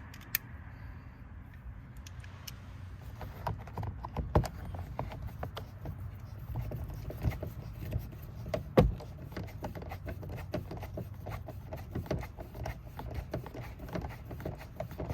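Irregular small clicks and knocks of hand work inside a car door: a screw being driven back in and plastic trim parts being handled. One louder knock comes about nine seconds in.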